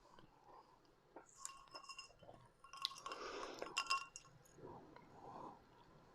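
Glass clinking several times with brief ringing, mixed with quiet chewing.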